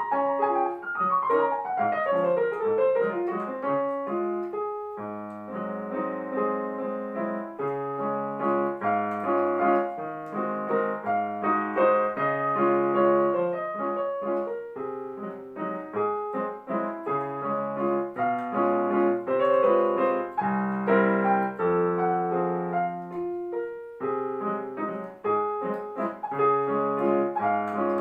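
Digital piano played in a solo classical recital: a fast run of notes falls in pitch over the first few seconds, then chords continue over low bass notes without a break.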